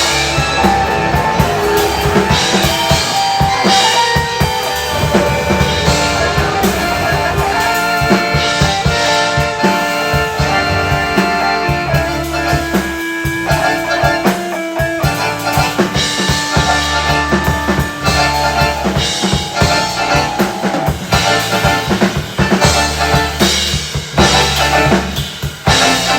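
Band music without vocals: a drum kit playing bass drum and snare hits over a steady bass line and held keyboard and guitar notes.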